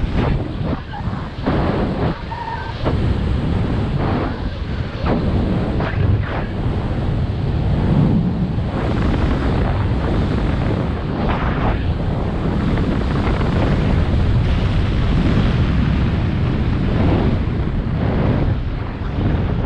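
Loud wind noise on the microphone from fast flight under a speed wing: a rushing, buffeting airflow that surges and dips irregularly.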